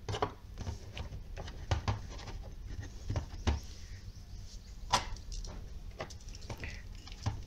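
Scattered light clicks and knocks of hard plastic parts being handled as a bulb holder is fitted to a clear plastic project box.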